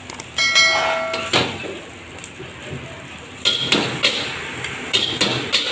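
A metal ladle and spatula scraping and knocking against a wok as fried shredded egg is scooped up and pressed in the ladle. One knock about half a second in rings clearly for nearly a second, and more clusters of clinks and scrapes come later.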